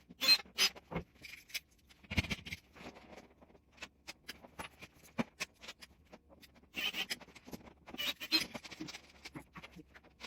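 Irregular clicks, knocks and rustling of hardware and objects being handled, with louder clusters about a second in, around two seconds, and between seven and nine seconds.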